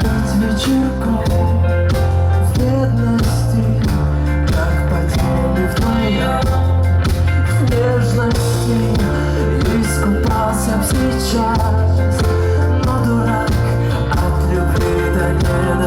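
Live rock band playing a song: electric bass and drums carrying a steady beat under guitars, with a little singing.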